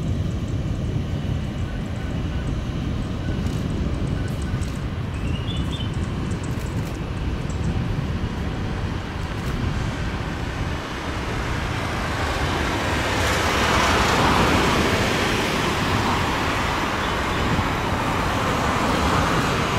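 Airbus A340's four jet engines running at low taxi thrust as it rolls into line-up position: a steady rumble and hiss that grows louder about two-thirds of the way through.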